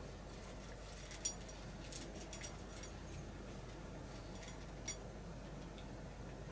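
Cat eating dry kibble from a metal bowl: scattered sharp clicks and clinks of kibble and teeth against the bowl, the loudest about a second in.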